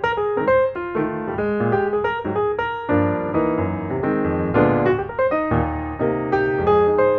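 Intro music: a piano playing a quick melody over chords, the chords growing fuller with lower bass notes about three seconds in.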